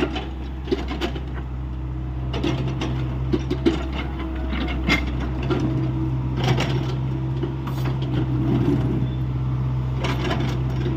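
Hyundai 85A excavator's diesel engine running steadily, with scattered metallic clanks and knocks from the machine working.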